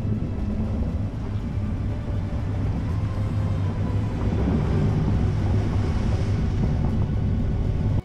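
Nissan X-Trail fording a shallow river: a steady low engine and tyre rumble with water splashing and rushing under the car, heard close up from the bonnet. It cuts off suddenly near the end.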